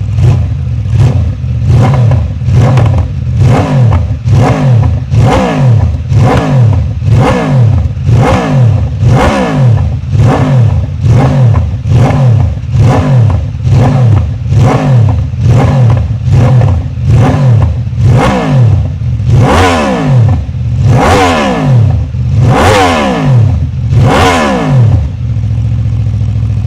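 Aprilia RSV4 V4 engine through an SC-Project GP-22 slip-on exhaust, revved in quick throttle blips about once a second over a steady idle. The last few revs go higher, and the engine settles back to idle near the end.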